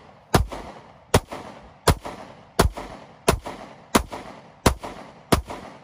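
Eight gunshots from one firearm, fired at a steady pace of about one every 0.7 seconds, each trailing off in an echo.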